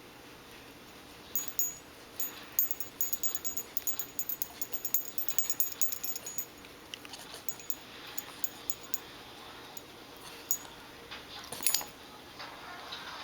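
Nine-week-old F1b labradoodle puppy with the hiccups, making small sudden sounds. A quick run of sharp clicks fills the first half, followed by scattered clicks and a louder burst near the end.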